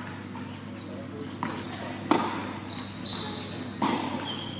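Tennis balls struck by rackets and bouncing on an indoor court, each hit ringing in the large hall, three sharp hits in all. Short high squeaks, from shoes on the court, come between the hits.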